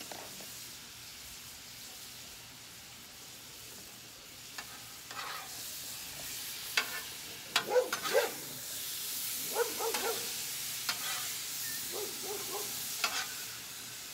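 Steak and vegetables sizzling in butter on a hot flat-top griddle, with a steady hiss. From about four seconds in, metal spatulas scrape and clack against the griddle as the meat is turned and chopped, loudest around the middle.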